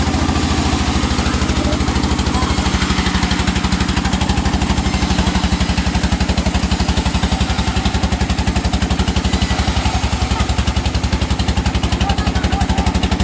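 Engine running steadily at an even speed with a fast, regular beat, typical of the motor that drives a sawmill's blade.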